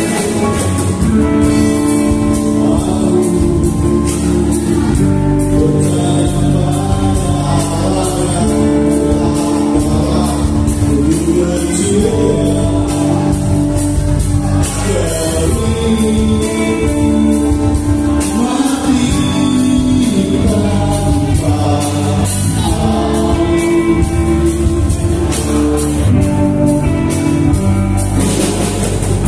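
Live band music played loud, with sung vocals over guitar and drums and regular cymbal hits. Its many voices sound choir-like, as if the crowd is singing along.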